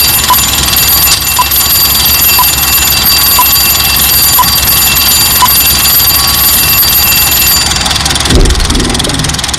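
Alarm clock bell ringing continuously and loudly, with a faint tick about once a second. The ringing stops about eight seconds in, followed by a low thud.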